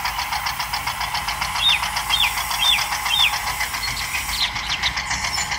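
Small electric motor and plastic gears of a homemade toy tractor and grain cart running with a fast, even ticking. A few short high chirps sound over it in the middle.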